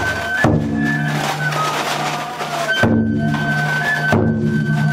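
Festival float music: a large taiko drum struck in slow single strokes, three times, each one ringing on, under a high held melody of the kind a bamboo festival flute plays.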